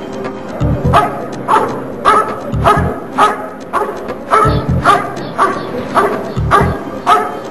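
A dog barking steadily, about two barks a second, at a helper hidden in a blind: the bark-and-hold of protection-dog work.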